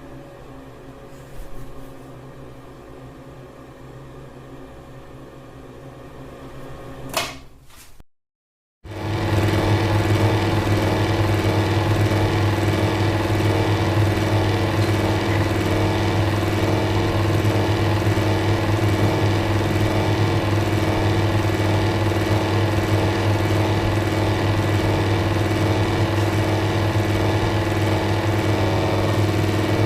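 Electric fans running: first a quieter steady hum, ended by a sharp click about seven seconds in, then after a brief silent gap a louder fan running with a steady motor hum.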